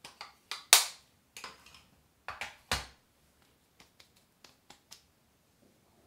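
A run of sharp clicks and knocks from small objects being handled and set down, the loudest about three-quarters of a second in and again near three seconds, with a few fainter ticks after.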